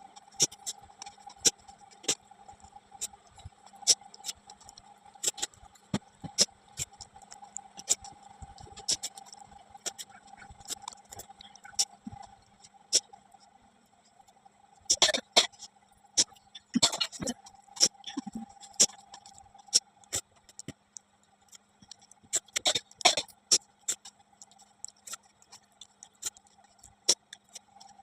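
A person eating a meal of dal, rice and roti: scattered wet chewing and mouth clicks, with small taps, and a few louder bursts of clicking and clatter. A faint steady hum runs underneath.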